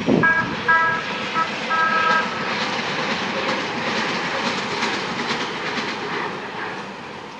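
An MTS light-rail trolley sounds about four short horn toots, then passes with its wheels clattering on the rails, the noise fading as it moves off.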